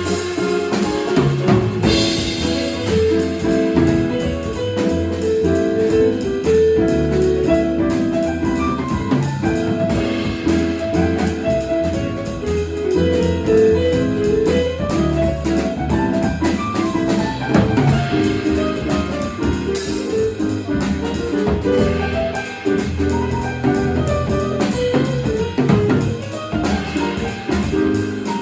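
A jazz quartet of drums, piano, bass and saxophone playing live: a moving melody line over a walking bass line, with drums and cymbals keeping time throughout.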